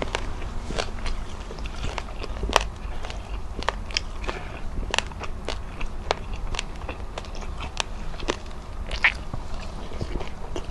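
Close-miked chewing and mouth sounds of a person eating fried tilapia and rice by hand, with two or three sharp crackly clicks a second over a steady low hum.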